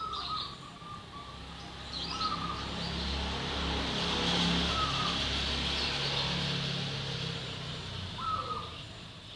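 Zebra dove (perkutut) cooing in short repeated phrases every couple of seconds, with higher bird chirps and a low background rumble that swells in the middle.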